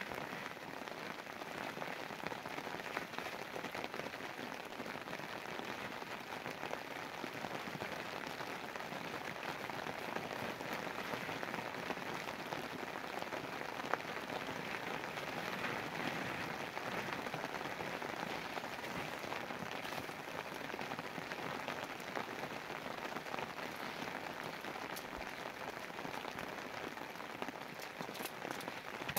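Steady rain falling on a tarp and the wet forest ground, with single sharper drop hits now and then.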